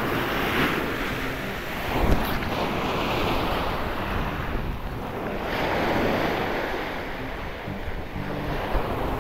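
Choppy surf washing on the beach in swells every few seconds, with wind buffeting the microphone. A brief thump about two seconds in.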